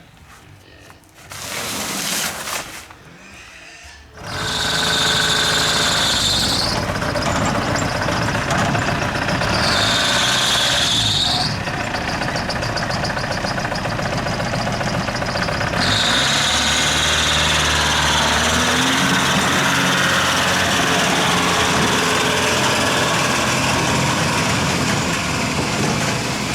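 Heavy machinery running loudly and steadily, engine-like, with a rushing hiss that comes and goes a few times, starting about four seconds in; typical of a truck or machine unloading cement.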